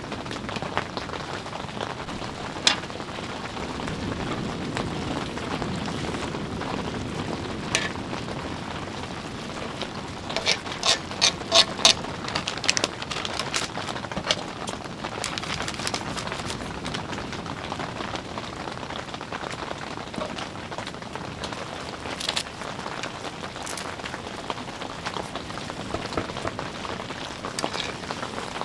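Steady rain pattering, with scattered sharp clicks and knocks, including a quick run of about six clicks near the middle.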